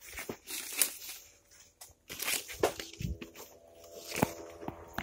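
Rustling and scattered clicks of leaves and hands brushing against the phone, with a faint steady hum coming in about three seconds in.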